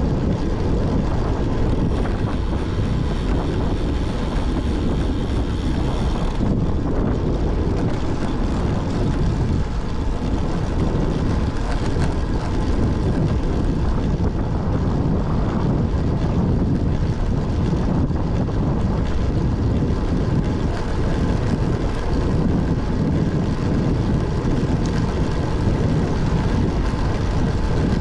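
Wind rushing over a GoPro's microphone on a moving road bike, with tyre noise on asphalt: a loud, steady rumble. A higher hiss over it drops away about six seconds in.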